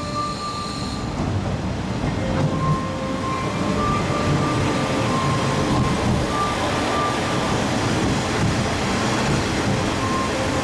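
KiHa 47 diesel railcars running past close by along a station platform: diesel engine rumble and wheel and rail noise, growing a little louder as the cars go by. Short electronic tones sound on and off through it.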